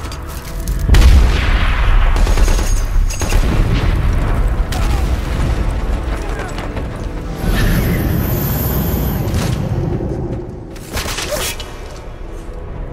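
Battle-scene soundtrack: a heavy explosion boom about a second in, then a continuing din of blasts and gunfire under music, with some voices in the middle. It eases off near the end.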